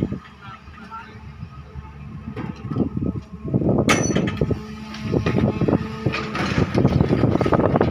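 SANY excavator working: the engine runs under a dense mix of clanks and knocks from the bucket digging soil and stone. It grows louder and busier about halfway through, with a sharp clank just before.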